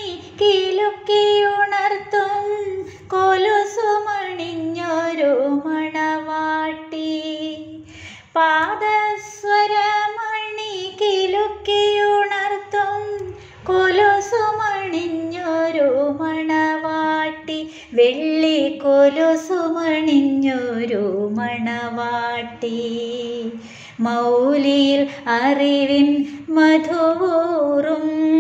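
A woman singing a Malayalam song solo, holding long notes with vibrato between short breaths, over a faint low backing.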